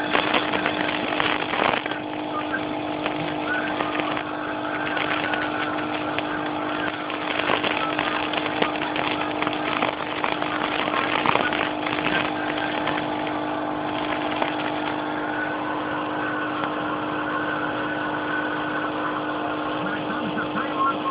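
Nebulizer's air compressor running with a steady hum and hiss as it pushes mist out of the mouthpiece. A few light knocks are scattered through the first dozen seconds.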